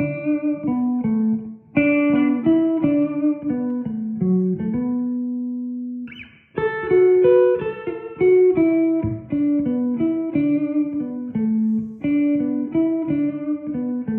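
Gibson Les Paul Custom electric guitar on its Tom Holmes neck pickup alone, tone wide open, played through a 1967 Park amp. A melodic line of single notes in phrases, with a held note and a short break about five to six seconds in before the playing resumes.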